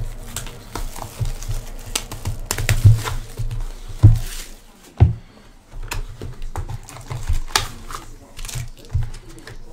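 Trading-card packs being pulled out of a cardboard hobby box and stacked on a table: an irregular run of clicks, light knocks, dull thumps and wrapper crinkling.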